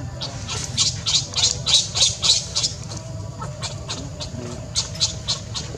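A rapid series of short, harsh, high-pitched animal calls, about four a second, thinning out to scattered single calls after about three seconds.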